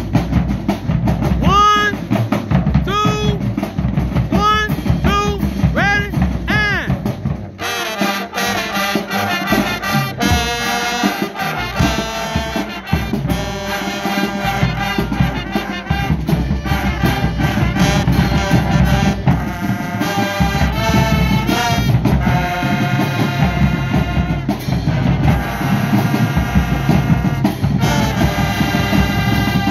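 High school marching band playing. For the first seven seconds or so, the drums keep a beat under short rising-and-falling pitched calls about once a second. Then the brass section of trumpets, trombones, saxophones and sousaphones comes in with a full, loud tune over the snare and bass drums.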